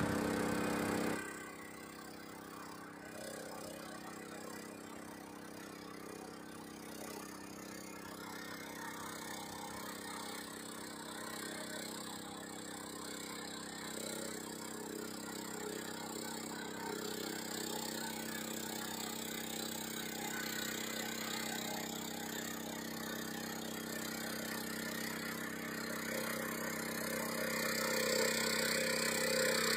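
Engine of a Mahindra Planting Master Paddy 4RO riding rice transplanter running steadily while it drives and plants across the paddy, getting gradually louder as the machine comes closer.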